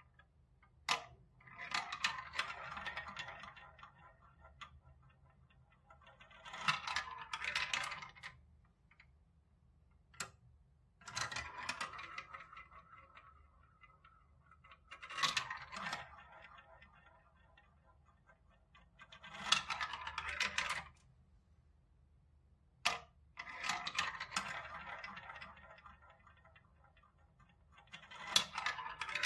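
Small balls rolling and rattling through a plastic marble-run track, whirling round the spiral funnels and clicking as they drop from piece to piece. It comes as a series of separate runs of two or three seconds each, with single sharp clicks between some of them.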